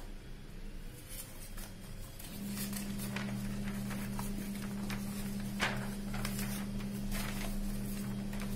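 Canon iR 2520 photocopier giving a steady electrical hum that grows louder about two seconds in, with scattered clicks and paper rustling as the original is swapped for the second sheet.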